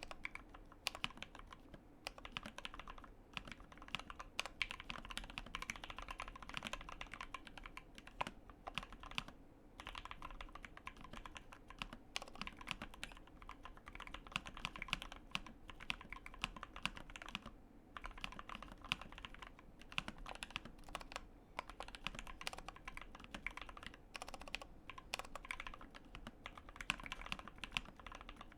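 Steady fast typing on a Tofu84 mechanical keyboard with lubed Gateron Ink Black linear switches: a dense stream of keystrokes broken by a few brief pauses. The spacebar sounds noticeably louder than the rest of the keys.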